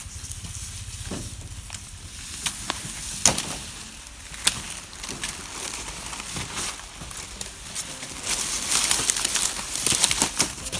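Hand knives chopping through sugarcane stalks: sharp, separate cracks about a second apart, over the rustle of dry cane leaves that gets loud near the end.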